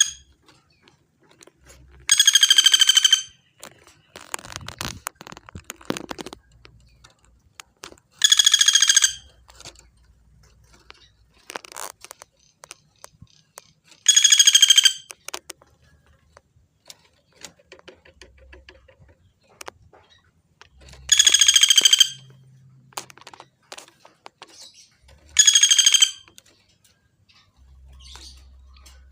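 A woodpecker of the kind called pelatuk bawang in Indonesia gives five loud, high rattling calls, each about a second long, spaced four to seven seconds apart, with faint clicks between.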